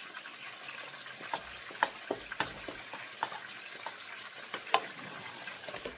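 A pot of thickening cornmeal and okra cou-cou being stirred, the utensil knocking against the pot at irregular intervals, loudest about two seconds in and again near five seconds, over a steady low hiss.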